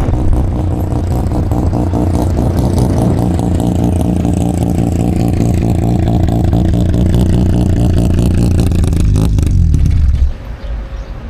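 Loud exhaust of a Mazda rotary-engined car running at low revs with a rapid, steady pulsing note, its pitch sagging slightly. The sound drops away abruptly about ten seconds in.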